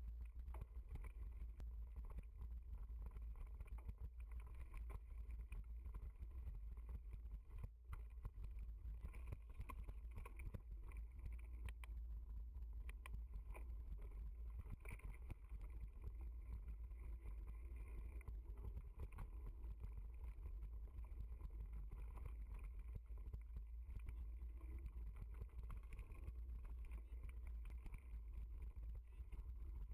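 Mountain bike ridden fast over a rough dirt trail, heard through an action camera on the bike: a constant low rumble of wind and vibration on the microphone, with continual rattling and knocking from the bike and camera mount over bumps.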